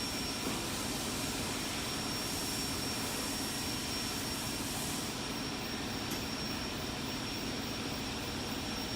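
Steady background machine noise, an even hum and hiss with a thin constant high whine, unchanging throughout.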